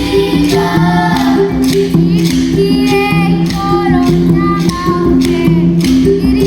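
Mbira ensemble playing an interlocking, repeating pattern of plucked metal-key notes, with children singing a melody over it and a rattle keeping a steady beat.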